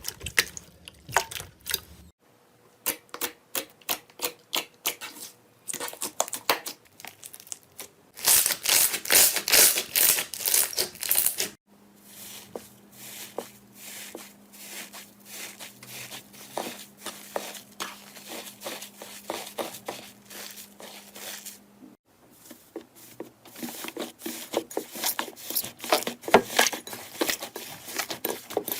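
Slime being squeezed, poked and stretched by hand, giving off close-up crackling, clicking and popping in several short takes. The densest and loudest crackling comes from about 8 to 11 seconds in.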